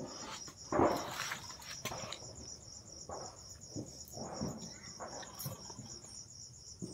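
Crickets chirping in a steady, rapid high-pitched pulse, with a few brief soft sounds over it, the loudest about a second in.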